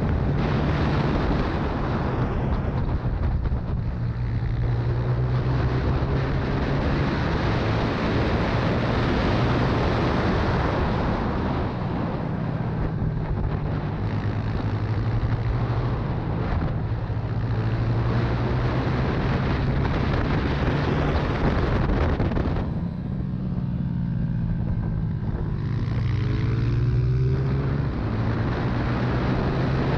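Honda CRF125's single-cylinder four-stroke engine running hard at racing speed, over wind noise. About three quarters through the throttle is chopped for a corner and the engine note then climbs back up in rising sweeps as it accelerates.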